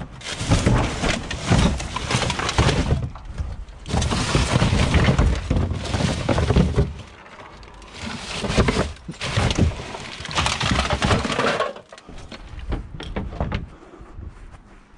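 Loud clattering and crashing of hard objects, in three bouts of about three seconds each, quieter for the last few seconds.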